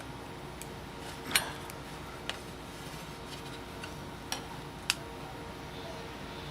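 A few sharp, scattered clicks and taps of a metal scraper on a glass print bed and hard plastic as a large 3D print is pried loose, over a steady low hum.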